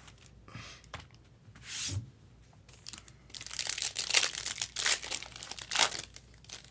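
Foil wrapper of a 2024 Bowman Sapphire baseball card pack torn open by hand, crinkling and ripping. There are two brief rustles in the first two seconds, then a dense spell of crinkling and tearing from about three to six seconds in.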